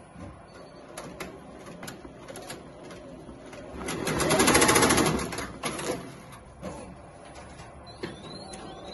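Tajima multi-needle embroidery machine stitching: a rapid needle clatter with scattered clicks, swelling loudest for about a second midway. Near the end come a few short rising whines.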